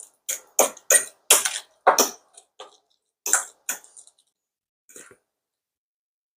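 A utensil mashing and mixing avocado in a bowl: a run of short, wet scraping strokes at an uneven pace, stopping a little after five seconds in.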